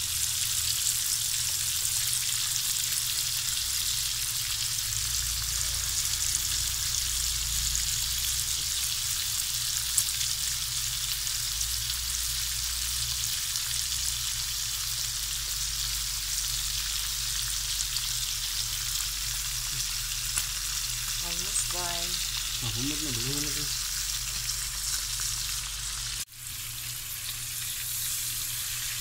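Bacon strips frying in a pan in their own rendered fat: a steady sizzle, with a momentary break near the end.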